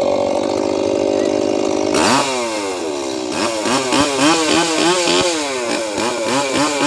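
Two-stroke chainsaw engine running at high speed, then from about two seconds in being revved up and down over and over, its pitch falling and climbing again about every half second.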